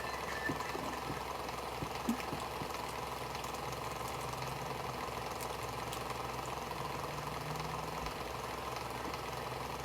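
Steady mechanical hum, with a few faint clicks in the first couple of seconds.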